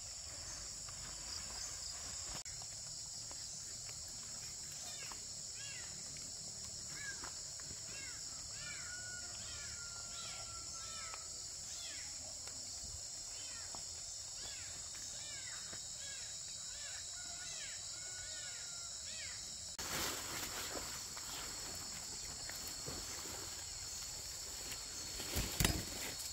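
Steady high-pitched insect drone, with a bird chirping in quick short calls between about five and nineteen seconds in. From about twenty seconds in, a rustling noise joins, and near the end a single sharp knock stands out as the loudest sound.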